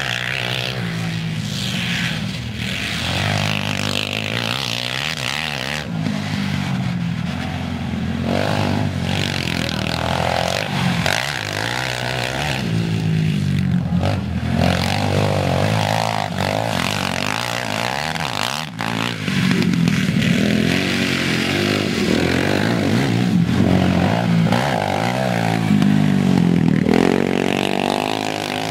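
Quad ATV engines revving up and down as they are ridden hard, the pitch rising and falling again and again.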